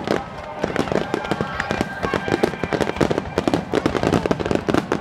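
Aerial fireworks bursting in a rapid, dense barrage: many sharp bangs and crackles overlapping, with a few brief whistling tones among them.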